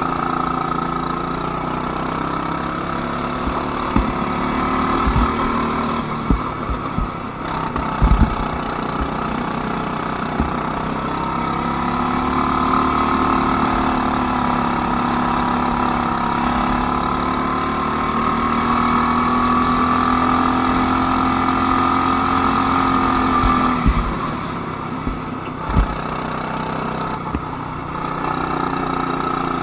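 Go-kart engine running continuously, its pitch rising and falling slowly as speed changes, with a few short thumps and a quieter stretch near the end.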